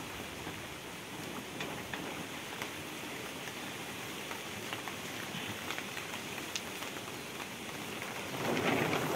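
Steady rain falling, a continuous even hiss with faint scattered drip ticks. A louder brief rustle comes near the end.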